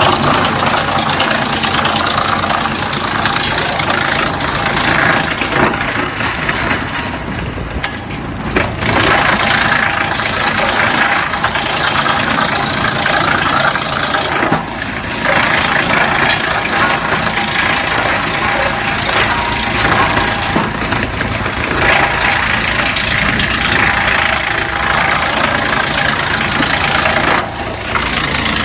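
HX218 drum wood chipper running and chipping wood logs: a loud, dense grinding noise over a steady machine hum, easing off briefly a few times between loads.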